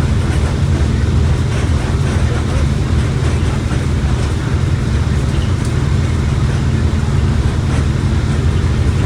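Mercedes-Benz OF1721 BlueTec 5 bus diesel engine running steadily under way, a loud low rumble with road noise over it.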